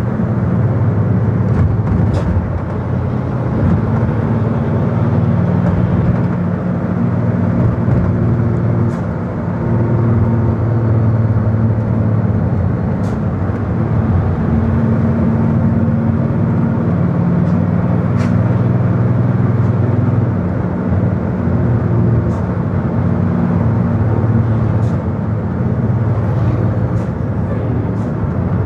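Vehicle engine and road noise heard from inside the cabin while driving. It is a steady drone whose engine pitch shifts up and down several times.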